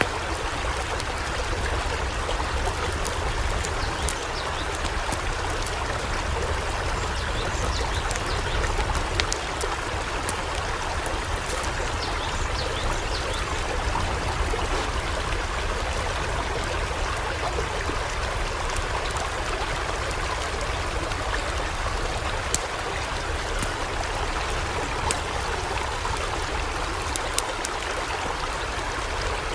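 Floodwater rushing: a steady, unbroken rush of flowing water with a deep rumble underneath and scattered small ticks.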